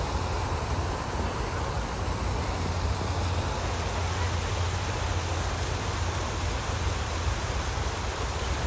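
Wind buffeting a phone microphone: a steady rushing noise with a heavy low rumble.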